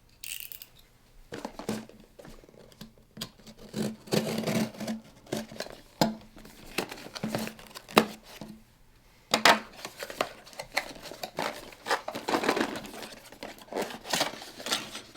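Plastic packaging being cut and torn open by hand, with irregular crinkling, rustling and sharp clicks and snaps.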